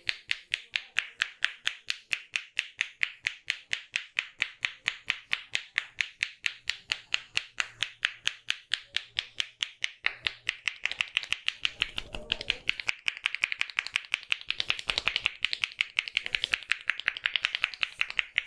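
A barber's hands tapping rapidly and rhythmically on a client's head in a head massage, a sharp clapping tap at about four or five a second that quickens to about seven a second around halfway.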